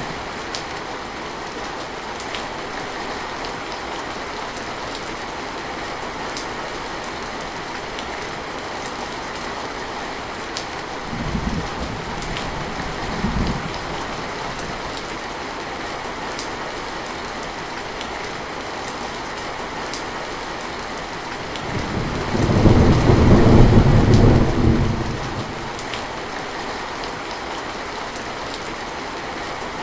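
Heavy rain falling steadily, with two brief low rumbles of thunder around the middle and a louder, longer roll of thunder about three quarters of the way through.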